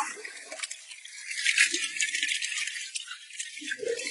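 A dense, crackling rattle of many small clicks, loudest about one and a half seconds in.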